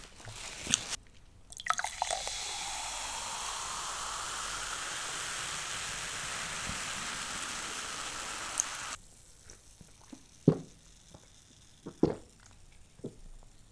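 Cola poured from a bottle into a glass mug: a steady, fizzing pour whose pitch rises over the first few seconds and which cuts off suddenly about nine seconds in. It is followed by a few short, sharp sounds as the cola is drunk.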